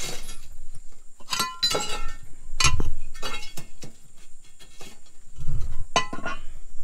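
Scattered metallic clinks and knocks, some ringing briefly, as steel hitch tubing and tools are handled on a drill press table, with two louder dull thumps.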